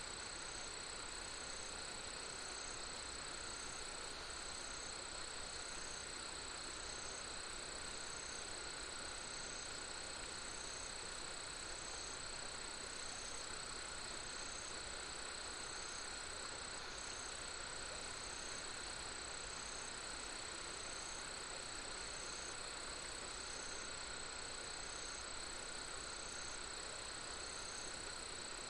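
Insects, likely crickets, calling steadily in a continuous chorus. One call pulses about every second and a half, layered over a constant high drone and a soft, even background hiss.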